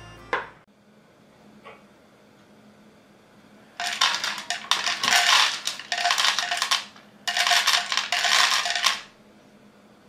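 Dry kibble clattering out of a WOPET automatic pet feeder's chute into its plastic bowl, in two rattling bursts of about three seconds and about two seconds as the feeder dispenses a portion.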